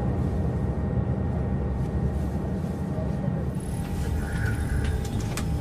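A steady low rumble with a faint, high, steady tone running through it.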